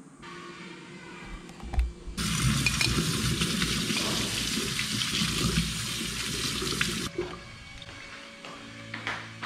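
A kitchen tap running into a stainless steel sink, the stream pouring over small wild bitter gourd fruits in a wire-mesh strainer. It comes on just after a short knock about two seconds in and stops suddenly about five seconds later.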